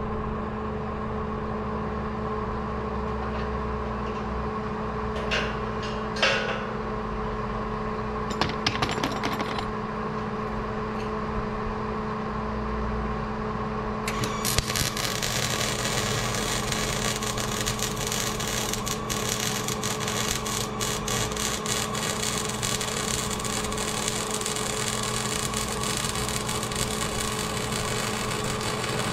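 MIG welding arc crackling and sizzling steadily as rebar is welded onto steel channel, starting about halfway through and cutting off suddenly at the end. Before it, a steady hum with a few sharp clicks.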